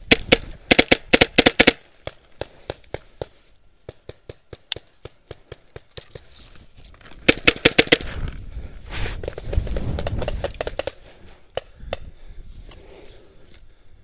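Paintball marker firing a fast burst of shots at the start and another fast burst about seven seconds in, with fainter scattered pops between and two single shots near the end. A stretch of low rumbling noise follows the second burst.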